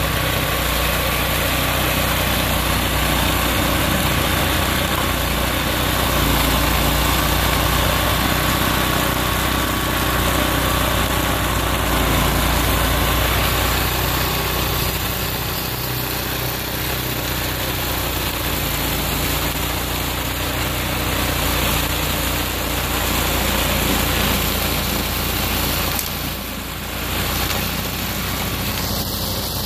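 Snowblower's small gasoline engine running steadily under load as it clears snow, with a short dip in loudness near the end.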